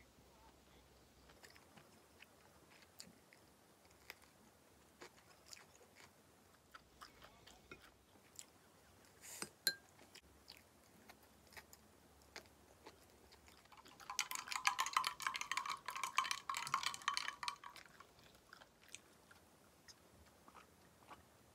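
Quiet eating sounds: soft chewing and light taps of a wooden spoon on a ceramic bowl. Then about four seconds of dense, rapid clinking as ice rattles in a glass that is lifted to drink.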